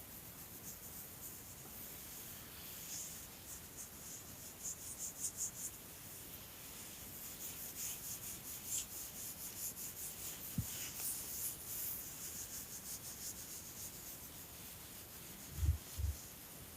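Quick, soft rubbing or scratching strokes, several a second, coming and going in runs, with a single click partway through and two low thumps near the end.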